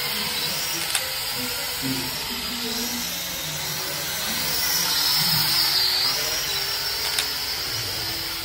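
Small toy quadcopter drone in flight, its motors and propellers giving a high whine whose pitch wavers up and down as it is flown. The whine grows louder a little past the middle.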